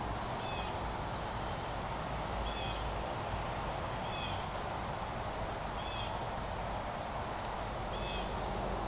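Short high chirps, each with two stacked notes, repeated about every one and a half to two seconds, typical of a bird calling, over a steady hiss and a faint high whine.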